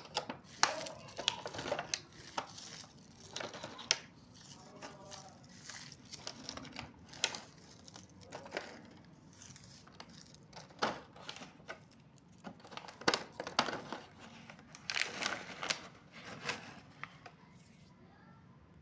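Thin clear plastic clamshell box and cellophane-wrapped hard candies being handled: irregular crinkling with scattered sharp plastic clicks.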